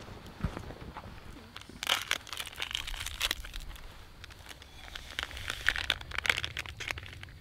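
A packet crinkling and rustling in two spells as it is cut open and emptied into a steel cup.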